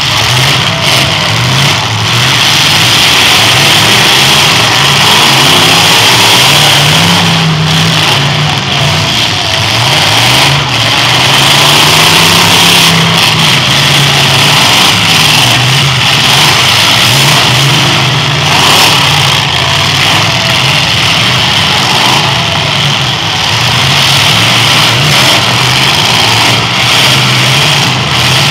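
Demolition derby cars' engines revving hard, their pitch rising and falling again and again as the cars push against each other in the mud.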